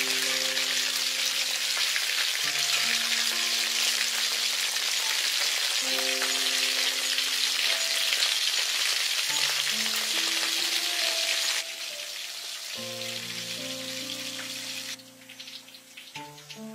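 Food frying, a loud, dense sizzle that drops abruptly in level about two-thirds of the way through and fades further near the end. Slow background music of held notes plays underneath.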